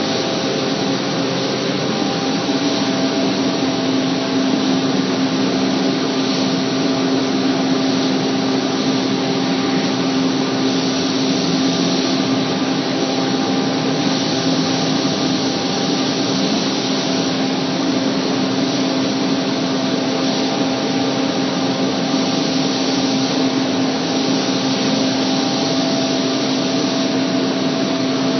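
Paint-spraying equipment running without a break: a steady motor hum under a constant hiss of air.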